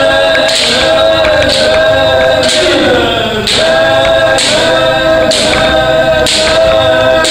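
Several kendo practitioners shouting kiai together, a drawn-out call renewed about once a second with each shinai strike, with a sharp crack at the start of each.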